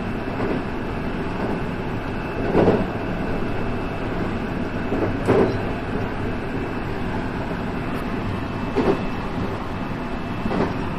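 JR West 223 series electric train running along the track, heard from the cab: a steady rolling rumble with four louder knocks of the wheels a few seconds apart.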